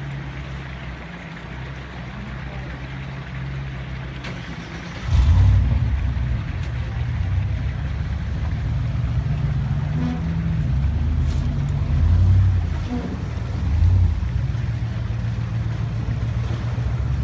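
A vehicle engine running steadily, then revving up sharply about five seconds in and pulling hard with repeated surges as the vehicle drives through a creek crossing.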